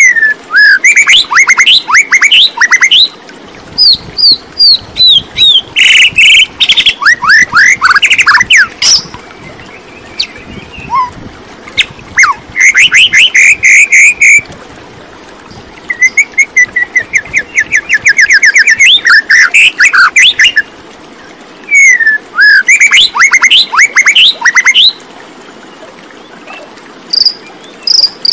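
Songbird singing loud, varied phrases of quick downward-sweeping whistled notes and rapid trills, each phrase lasting a few seconds with short pauses between, plus a couple of brief high notes near the end.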